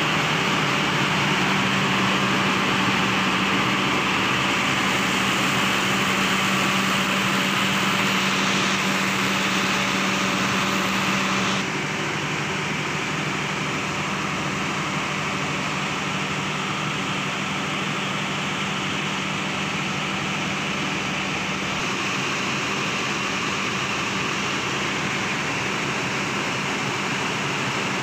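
Diesel generator set running steadily with a constant engine hum and drone. About twelve seconds in, the sound drops a little in level and changes character.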